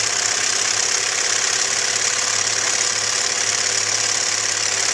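Sewing machine running steadily at an even speed, stitching free-motion whip stitch: the top thread tightened and the bobbin tension loosened so the bobbin thread loops up to the surface.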